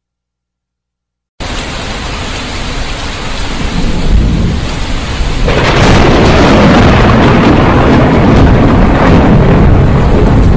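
Thunderstorm sound effect: a low rumble starts suddenly about a second and a half in and swells into a loud, steady rush of heavy rain and thunder about halfway through.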